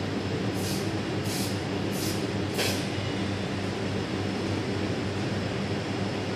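Aerosol spray can hissing in four short bursts, about two-thirds of a second apart, stopping about three seconds in, over a steady low mechanical hum.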